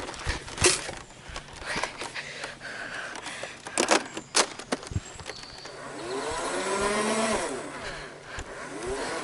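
A few sharp plastic clicks, as of a Nerf blaster being reloaded. Then a car passes by, swelling and fading about six to eight seconds in.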